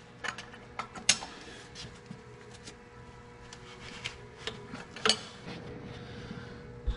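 Scattered metallic clicks and light scraping of a wrench and socket working the starter's mounting bolts as they are tightened, with a sharper click about a second in and another about five seconds in.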